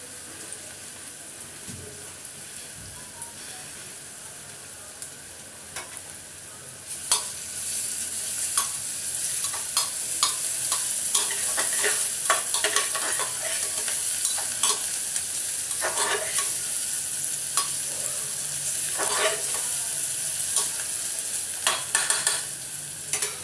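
Chopped onions sizzling as they fry in oil in a pan. About seven seconds in the sizzle gets louder, and a utensil starts scraping and knocking against the pan as the onions are stirred.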